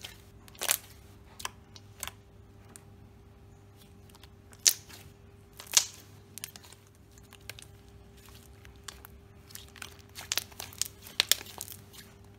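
Thick glossy slime being squished, pressed and stretched by hand, giving irregular sharp clicks and pops, the loudest two a little before and at about halfway, with a quick run of pops near the end.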